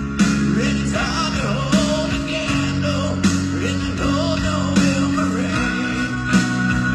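A live rock band playing a slow power ballad: sustained piano chords, drums with a hit about every one and a half seconds, and guitar, with a voice singing over them.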